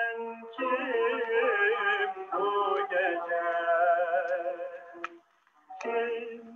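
A Turkish vocal song played from a recording, a solo voice holding long, wavering notes. It breaks off about five seconds in and comes back briefly.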